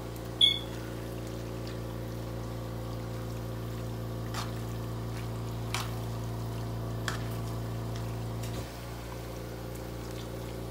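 Metal spatula stirring chunks of chicken into creamy pasta in a skillet: one sharp, ringing clink against the pan about half a second in, then a few light scrapes and clicks. A steady low hum runs underneath and drops off slightly near the end.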